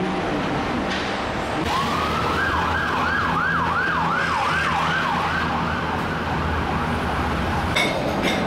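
An emergency vehicle's siren wailing over steady road traffic, its pitch sweeping quickly up and down about every two-thirds of a second; it comes in about two seconds in and fades after a few seconds. A couple of clicks near the end.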